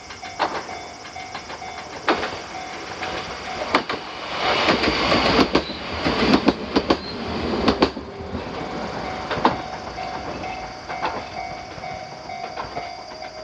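A Kintetsu Yoshino Line electric train passing over a level crossing, its wheels clacking over the rail joints, loudest about four to eight seconds in. The crossing's warning bell rings on under it as a steady tone.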